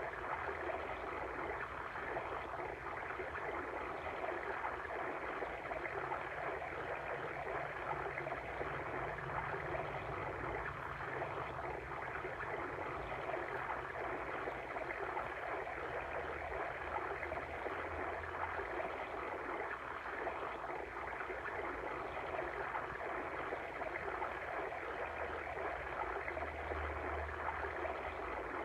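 Steady babbling of a flowing water stream, an even rush with a fine gurgling texture.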